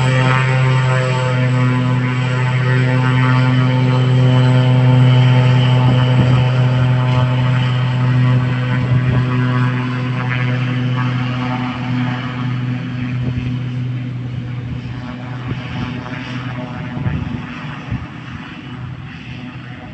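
Cessna 208 Grand Caravan's PT6A turboprop and propeller giving a steady low drone with a whine above it as the plane taxis along the runway. The drone grows fainter over the second half as the plane moves away.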